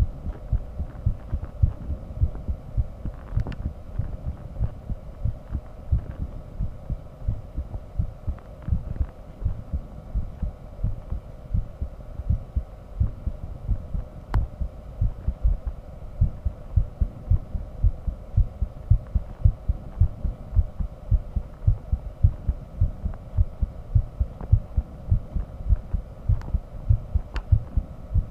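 A human heartbeat heard through a microphone on the chest: a fast, even run of low thumps over a faint steady hum.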